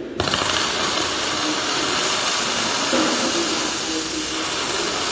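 MIG welding arc striking suddenly and then running steadily as a bead is laid along a steel I-beam, a continuous hissing crackle.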